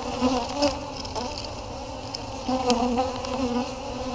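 Honey bees buzzing over the exposed frames of an open hive: a steady, wavering hum of a strong, crowded colony, swelling and easing as the bees move.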